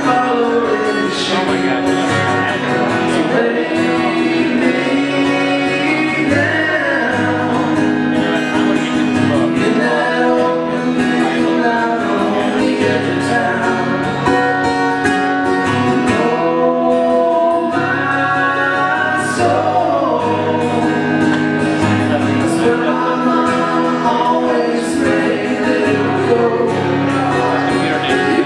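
A live country ballad: acoustic guitars played together under male singing, steady throughout.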